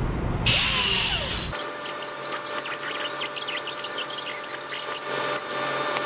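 Angled die grinder with a Scotch-Brite abrasive wheel running with a steady whine and scrubbing the rust off a wheel hub's rotor mounting flange, starting about half a second in.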